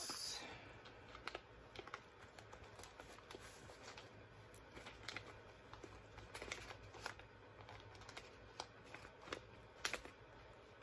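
Faint handling of a cross-stitch project: light rustling with scattered soft clicks and taps, about half a dozen of them spread through.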